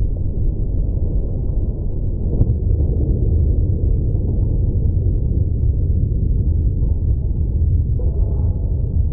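Steady low rumble of a GAZ car's engine and road noise heard inside the cabin, with a faint click about two and a half seconds in.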